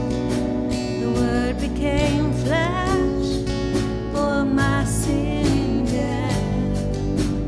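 Live worship music: a band playing a song with acoustic guitar strumming and a sung vocal line.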